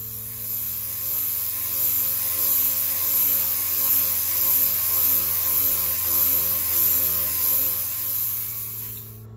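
Dual-action (DA) orbital sander with 80-grit paper running steadily against a white PVC speaker pod, a constant hum with a strong high hiss that rises and falls slightly as it is worked over the surface. It dies away near the end.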